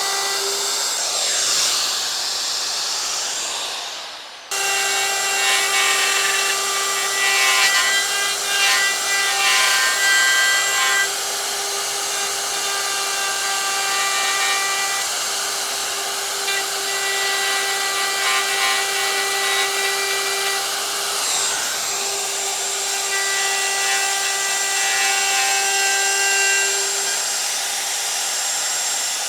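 Electric power saw cutting wood, its motor holding a steady whine over the hiss of the cut. It stops briefly about four seconds in, then runs on.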